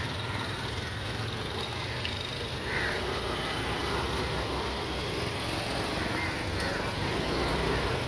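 A steady low engine rumble, with a crow cawing a couple of times, once about three seconds in and again around six seconds.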